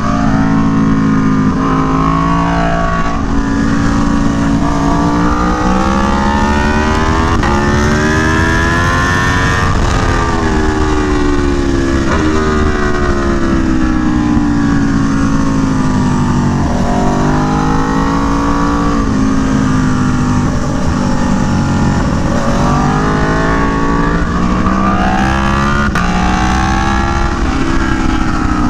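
Aprilia Tuono V4 1100 Factory's V4 engine through an SC Project CR-T exhaust at speed on track. Its pitch climbs hard in one gear, then sweeps down under braking, several times over.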